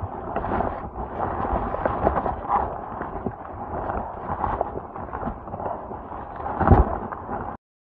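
Strong gale-force wind buffeting the microphone in gusts, with repeated low thumps and a heavy rumble, the loudest gust near the end; it cuts off suddenly just before the end.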